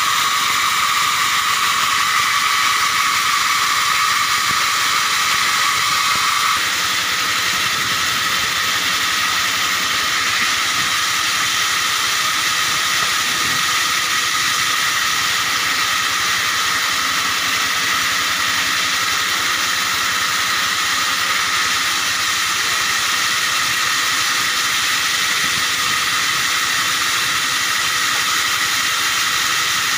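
Vertical band saw running and ripping small acacia logs into boards: a loud, steady high-pitched hiss of blade and wood. A steady tone in it stops about six seconds in.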